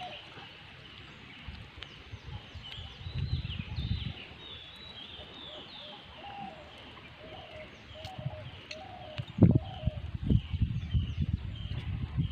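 Birds calling: a short low call repeated over and over, with higher chirping above it. Low rumbling thumps come in around three seconds and again from about nine and a half seconds, the loudest at that second onset.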